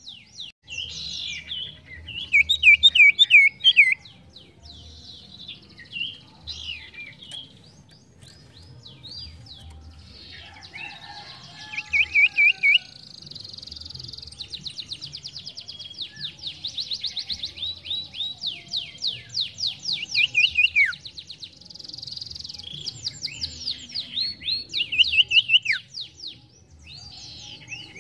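Sirtu songbird singing a busy run of high-pitched chirps and fast trills, with notes repeated several times a second and now and then a sharp downward-sliding whistle.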